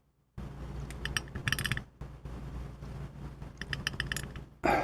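Small brass lock pins clinking as they are taken out of a mortise lock cylinder's plug: two short runs of quick, light metallic clicks, about a second in and again near the end.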